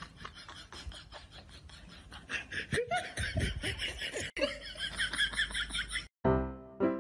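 Light, quick splashing as a dog paws at the water in its bowl, then a person breaks into loud laughter about two seconds in, lasting several seconds. Bouncy music cuts in near the end.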